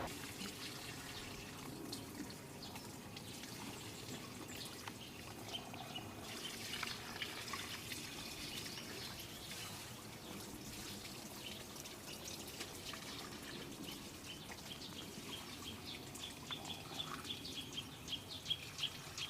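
Quiet rural ambience with birds calling: scattered high chirps over a faint background haze, then a quick run of short, high repeated chirps near the end.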